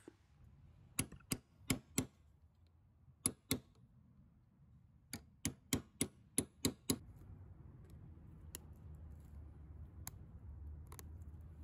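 Hammer tapping an old steel punch held against the back of a metal jacket snap, knocking its hooked prongs straight. Sharp metallic taps come in quick groups of four, two and seven, with three fainter clicks near the end.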